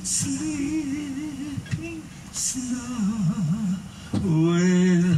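A vocalist singing a slow melody with wide vibrato, with little or no instrumental backing, ending on a long, loud held note near the end.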